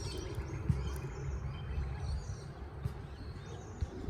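Rubik's cube being twisted by hand: a few faint, sparse plastic clicks over a low, steady background rumble.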